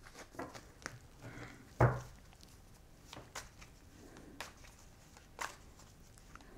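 A deck of tarot cards being shuffled by hand: soft, scattered clicks and flicks of the cards, with a louder thump a little under two seconds in.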